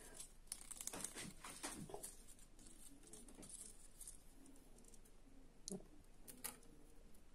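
Near silence with faint rustling and a few light clicks, the two sharpest in the last two seconds, from hands handling a self-adhesive rhinestone strip.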